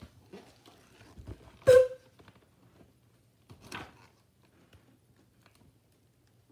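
A hardcover picture book being handled and turned round close to the microphone: one sharp knock with a brief ring a little under two seconds in, a softer knock near four seconds, and light rustling of the cover and pages.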